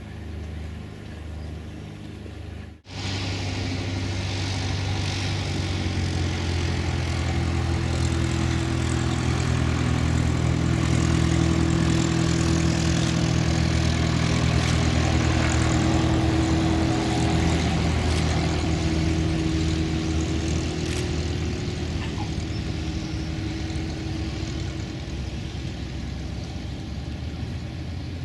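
Cessna 172's four-cylinder piston engine and propeller running steadily. The sound grows louder toward the middle, then slowly fades as the aircraft passes. An abrupt cut to it comes about three seconds in.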